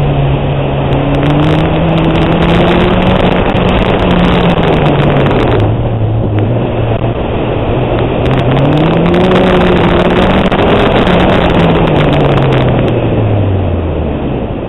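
1989 Honda Civic hatchback with a swapped B18B1 1.8-litre four-cylinder and SuperTrapp exhaust, driven through an autocross course. The engine note rises and falls with the throttle, dropping away sharply about six seconds in, climbing again, then falling off near the end. Road and wind noise run under it.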